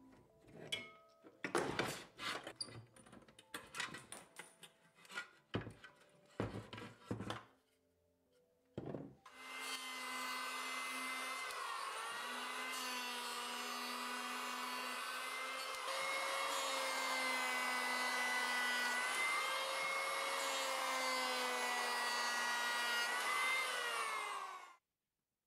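Metal bar clamps being handled and loosened give several sharp clicks and knocks. About nine seconds in, an electric hand planer starts cutting an oak handle blank and runs steadily, its whine dipping in pitch now and then, until it cuts off suddenly near the end.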